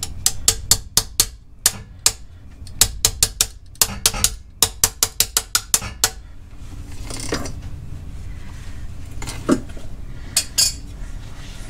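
Light hammer blows on steel, a quick run of sharp metallic taps, about four a second, working a pin in the jaw of a pilot bearing puller. It stops about six seconds in, and a few more taps come near the end.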